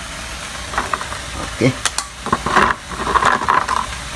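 Live blue swimmer crabs being handled in a plastic tub: their shells and claws knock and scrape against the plastic in an irregular run of clicks. Under them runs the steady hiss of shrimp frying in a pan.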